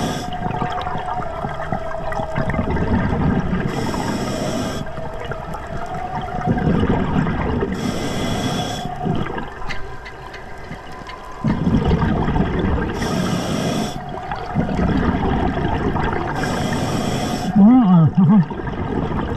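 Scuba diver breathing through an Atomic regulator: about every four to five seconds a short hiss of inhalation, followed by a bubbling rush of exhaled bubbles. Near the end comes a brief, loud wavering hum.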